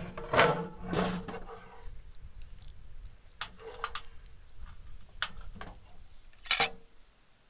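Several sharp metallic knocks and clinks, like utensils or cookware striking one another, each with a short ring, over a faint low rumble.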